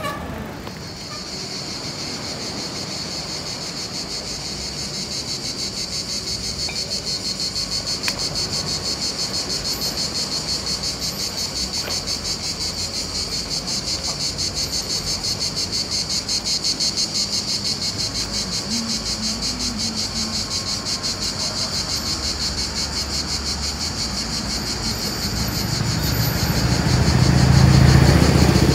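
Cicadas buzzing, a continuous high drone with a fast fine pulse, with a vehicle's low rumble swelling near the end as it passes.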